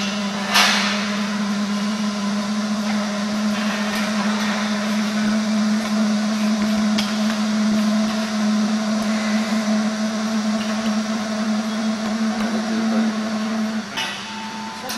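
Fuel-fired parking air heater running after a successful ignition: its blower and burner give a steady hum with a rushing noise as it puts out hot air. A brief sharp sound comes about half a second in, and the hum changes near the end.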